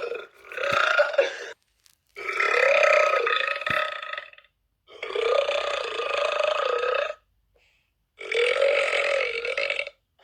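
A woman burping: four long, drawn-out burps in a row, each lasting one to two seconds with a wavering pitch, separated by short silent gaps.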